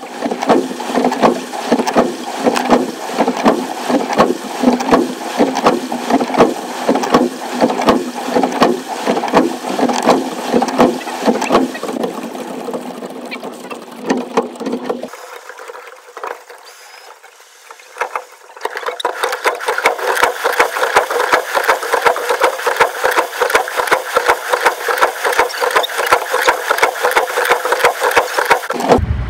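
Dense, rapid clatter of choppy water slapping against the bow of a rowing shell as it moves through the water. It thins out and quietens about halfway, then comes back brighter.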